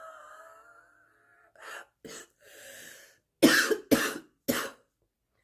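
A woman's morning smoker's cough: two small hacks and an indrawn breath, then three loud coughs in quick succession.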